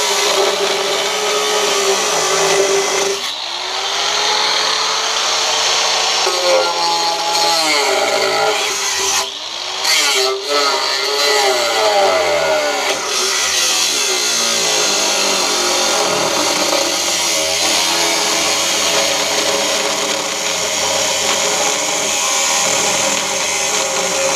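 Angle grinder with a cutting disc cutting through metal. Its motor pitch sags and recovers several times as the disc bites, with a short break about ten seconds in.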